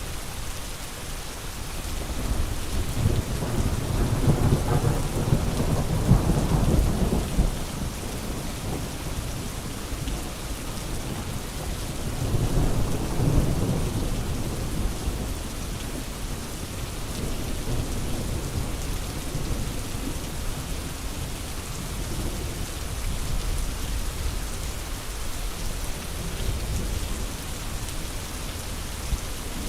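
Steady rain falling, with low rolling thunder that swells up twice, about three seconds in and again about twelve seconds in, before fading back.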